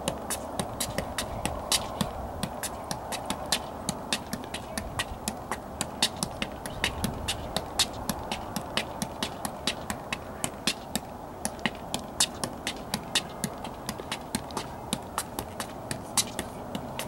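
A soccer ball being juggled on the feet: a quick, even run of sharp taps as foot strikes ball, kept up without a drop.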